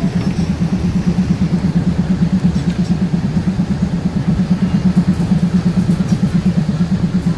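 Diesel passenger train running, heard from inside the carriage: a steady, loud low drone that pulses rapidly.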